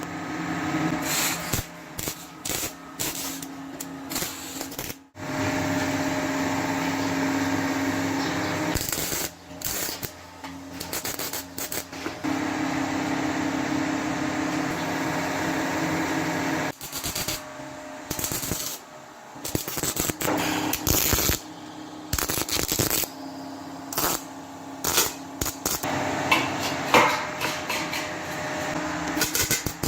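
Woodworking shop sounds in short, abruptly cut clips: a power tool running steadily in a couple of stretches, with taps and knocks in between.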